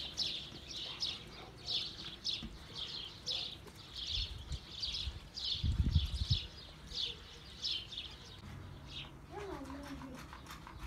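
A small bird chirping over and over, about two chirps a second, with a brief low rumble about halfway through and a short falling call near the end.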